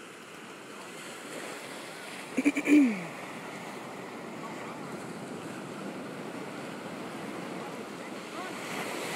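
Hawaiian monk seal sneezing once about two and a half seconds in: two quick sharp bursts, then a louder blast that drops in pitch. Steady ocean surf underneath.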